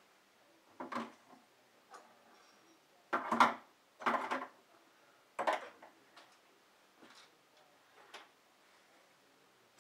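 Dishes and utensils being handled while washing up at a kitchen sink: a string of separate knocks and clatters, loudest from about three to four and a half seconds in.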